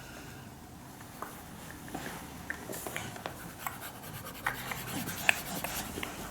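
Stylus scratching and tapping on the plastic surface of a drawing tablet, in small, irregular ticks and scrapes.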